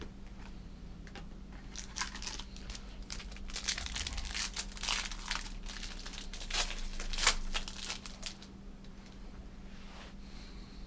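Plastic wrapper of a trading card pack crinkling and tearing as it is opened, a dense run of rustles from about two seconds in until about eight seconds in, then quieter handling.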